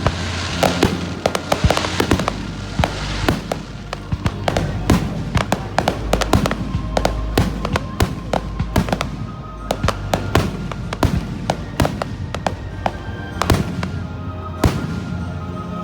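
Fireworks bursting and crackling in rapid succession: many sharp pops, with a dense crackling hiss in the first few seconds. Music plays steadily underneath.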